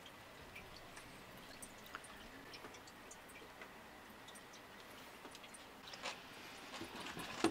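Faint scattered ticks and light taps of food being handled on a wooden board. About six seconds in, and again near the end, come short louder squirts from a plastic squeeze bottle of sauce.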